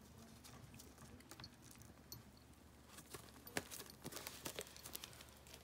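Cat eating scraps in a cardboard pizza box: faint scattered clicks of chewing and licking mixed with crinkling of the cardboard, getting busier about three seconds in.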